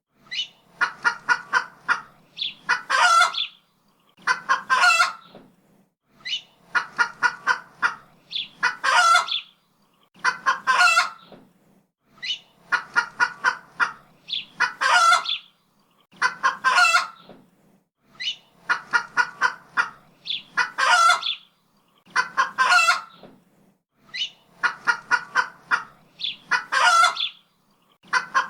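Chicken clucking in a repeating cackle: a quick run of short clucks ending in one longer, louder squawk, about every two seconds.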